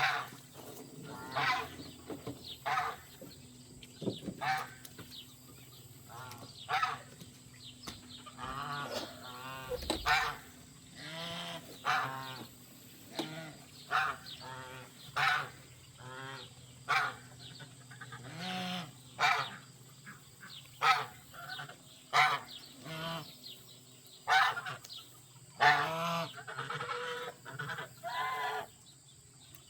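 Domestic geese honking repeatedly: short honks every second or two, with longer runs of overlapping calls in places.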